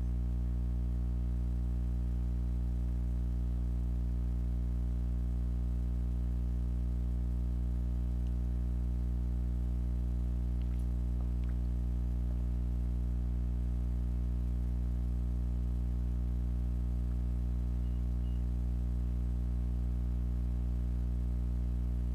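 A steady low hum with many overtones, unchanging in pitch and level, with a few faint ticks about halfway through.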